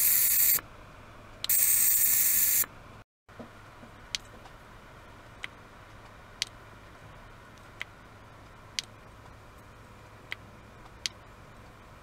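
Handheld ultrasonic device vibrating in a glass of water, giving a loud high hiss in two bursts of about a second each, with a short pause between. After that only a faint steady background with sharp single clicks about once a second.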